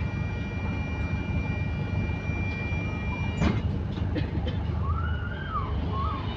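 A bus engine rumbles steadily throughout. A steady electronic tone sounds for the first three and a half seconds and stops with a knock. About five seconds in, an emergency vehicle's siren starts to wail, rising and falling.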